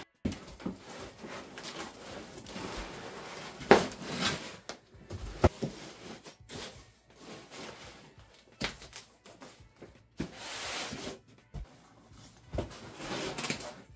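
Unpacking handling noise: aluminium machine parts and packing foam rubbing and shifting in a cardboard box, with scattered knocks, the sharpest about four seconds in and another a couple of seconds later.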